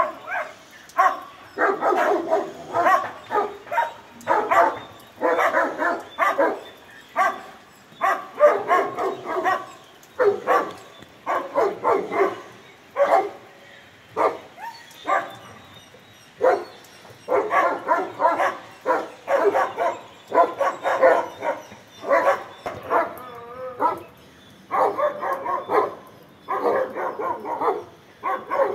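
Dogs shut in kennels barking in rapid runs with short pauses between them: alarm barking at a leopard prowling just outside the kennels.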